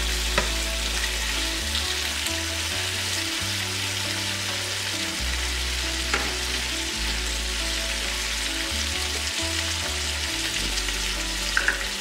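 Bacon sizzling and spitting steadily in a hot skillet as it renders its fat, with a few light clicks.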